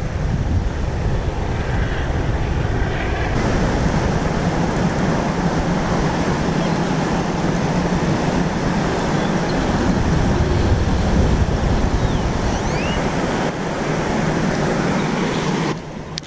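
Wind buffeting a wearable camera's built-in microphone: a loud, steady rush that drops away shortly before the end.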